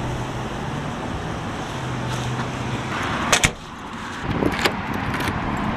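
Steady hum of street traffic. About three and a half seconds in, a door is pulled shut with a sharp knock, followed by a few lighter clicks at the door.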